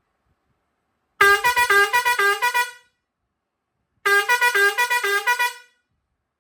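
Pioneairs 217S digital air horn with steel trumpet playing a short, quick melody of about a dozen notes, then repeating the same phrase after a brief pause.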